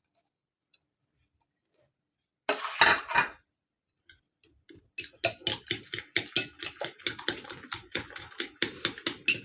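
A short clatter of chopped herbs and chillies tipped into a bowl, then a utensil beating the egg mixture in the bowl with rapid clinks, several a second, that keep going.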